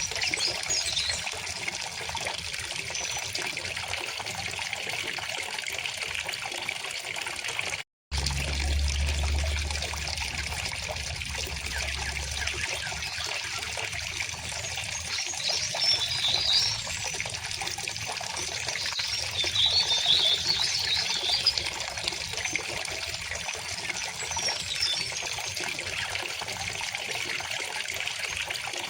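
River water flowing and trickling steadily, with songbirds chirping above it in a couple of short spells. There is a brief cut to silence about eight seconds in, followed by a low rumble for a few seconds.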